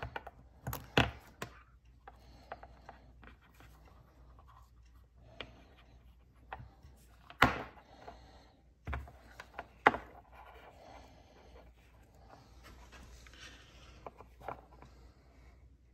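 Small flashlight headlamps being handled on a hard stone countertop: rubbing and shuffling, with a few sharp knocks as they are set down and moved, the loudest about seven and a half and ten seconds in.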